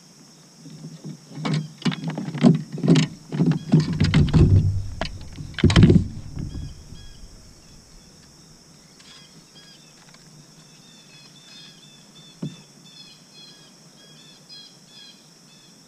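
Irregular knocks and hollow thumps of a plastic fish-measuring board and a freshly caught crappie being handled on a kayak. After that it goes quieter, with small birds chirping faintly.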